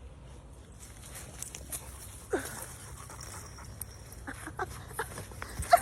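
A dog making brief sounds: a short falling cry a little over two seconds in, then several short sharp sounds near the end, over a steady background hiss.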